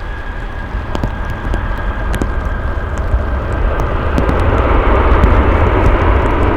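Jet airliner's engines growing louder as the plane passes, a deep rumble that peaks about two-thirds of the way in, with scattered raindrop ticks.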